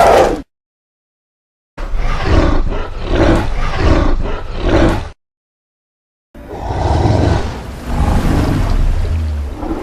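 Custom-made Gwythaint creature sound effects: a run of rough roaring calls, about two a second, then a gap of dead silence and one long drawn-out roar. The clips are separated by digital silence.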